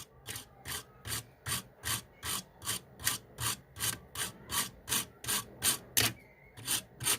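Small hand file rasping back and forth with short, even strokes, about two and a half a second, scraping built-up carbon off a component pin on a set-top box circuit board; the strokes pause briefly about six seconds in, then resume.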